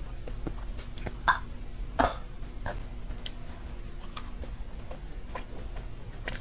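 A woman's short throat and mouth noises while chewing: a few sharp ones in the first two seconds, then fainter mouth clicks. She is reacting to a macaron's liquor-soaked cherry whose alcohol taste she can hardly bear.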